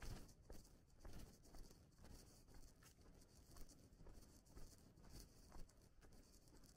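Faint footsteps of a person walking on a path, about two steps a second.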